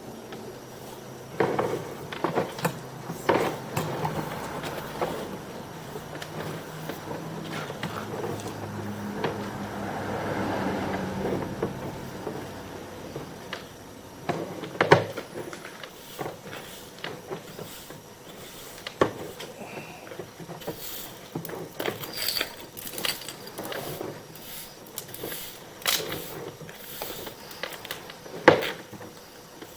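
Sewer inspection camera and its push cable being fed down a lateral line: irregular knocks and clicks, with a sharper knock about halfway through and another near the end, and a low hum during the first ten seconds or so.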